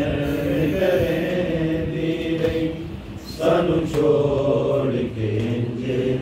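Men's voices chanting a noha, a Shia mourning lament, in long held lines. The chant dips briefly about three seconds in, then the next line begins.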